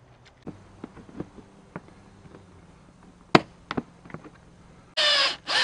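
Plastic front cowl of a motorcycle being handled and pressed into place, with light clicks and taps and one sharp snap about three and a half seconds in. Near the end, a cordless impact driver gives two short bursts driving the panel's bolts.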